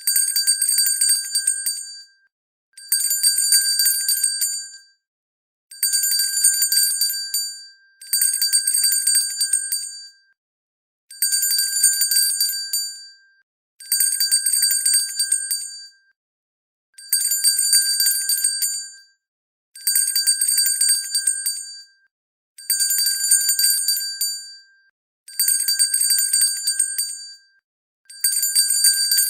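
Hand bell shaken in bursts of rapid ringing, each burst about two seconds long, repeating about every three seconds with short silences between.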